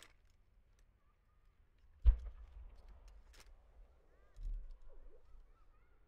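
A single aerial firework shell fired from its mortar: a sharp, deep launch thump about two seconds in as the shell lifts off and climbs, followed about two seconds later by a second, softer low thump.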